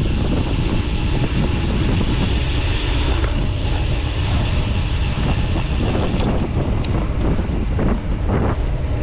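Wind rushing over the microphone of a camera mounted on a road bike ridden at speed: a steady low rumble with hiss.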